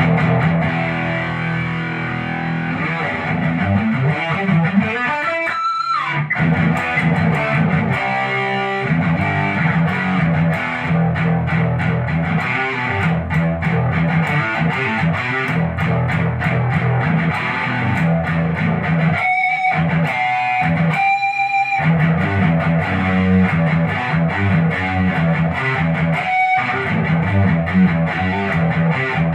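Fernandes HSS electric guitar with a Floyd Rose tremolo, played with distortion in riffs and lead lines. About six seconds in, a pitch glide rises and then drops sharply. Near the end there are a few short breaks where single held notes ring out.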